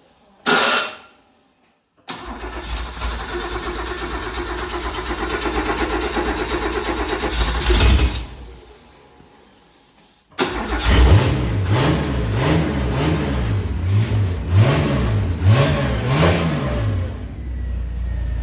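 HR Holden's 186 straight-six, bored out to 192 and fed by twin carburettors, runs for several seconds and dies. About ten seconds in it fires again and is revved up and down about five times, then settles to a steady fast idle.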